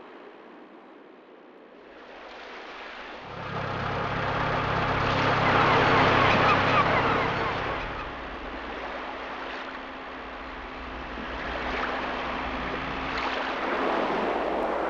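Sea waves and wind, a steady wash of noise that swells about three seconds in, with a low steady hum underneath for several seconds.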